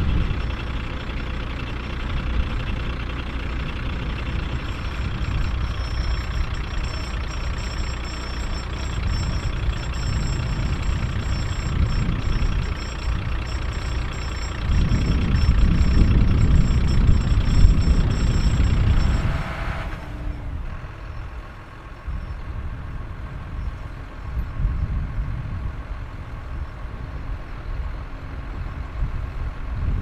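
Heavy diesel engines of a John Deere 6215R tractor and a recovery truck running during a mud recovery. The sound grows louder about fifteen seconds in, then drops suddenly near twenty seconds to a quieter, steady running.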